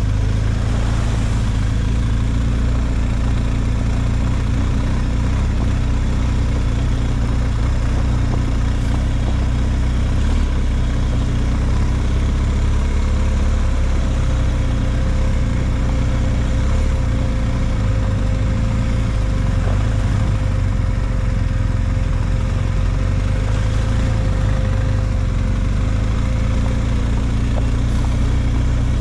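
An engine idling steadily at an even speed, with no revving. A faint thin whine joins in for a stretch in the middle.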